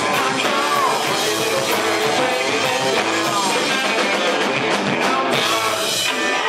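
Punk rock band playing live, with guitar, drums and a singing voice. The music thins out near the end as the song finishes.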